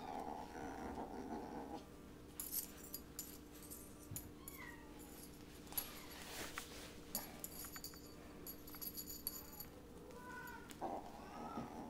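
Kittens scuffling over a feather wand toy on a tiled floor: scattered clicks and jingly rattling of the toy and paws through the middle, with a few short mews near the middle and the end.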